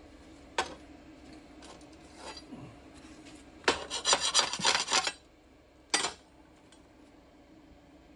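Steel bar stock scraping and knocking against a steel welding table: a sharp knock, a faint scrape, then about a second and a half of rapid rasping scrapes, and another knock.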